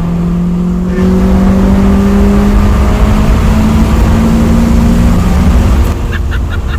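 Honda Prelude's 2.2-litre H22A VTEC four-cylinder engine pulling hard under acceleration after a downshift, its note rising steadily for about five seconds and then falling away as the throttle closes near the end.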